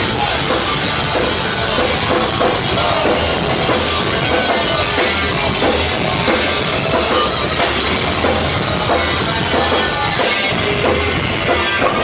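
Punk rock band playing live: loud distorted electric guitars, bass and a pounding drum kit, continuous.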